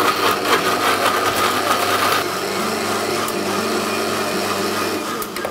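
Electric mixer-grinder running, its stainless-steel jar grinding tomatoes into a fine, liquid puree; the motor stops just before the end.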